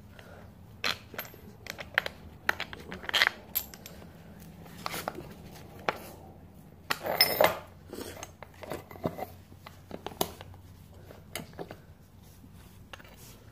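Metal bicycle parts clinking and knocking as a GT bike frame and handlebar are handled and worked on with gloved hands. Irregular sharp clicks, with one louder, longer clatter about seven seconds in.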